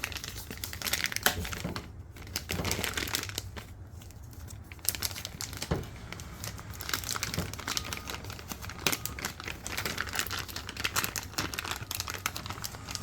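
Packaging of a new windshield wiper blade being crinkled and pulled open by hand: irregular crackling and rustling with now and then a tearing sound.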